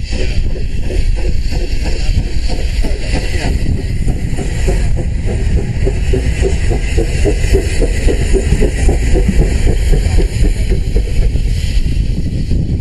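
GWR steam railmotor No. 93, a carriage with its own built-in steam engine, running past close by over a heavy low rumble. A quick, even beat rises to its clearest about halfway through as it goes by.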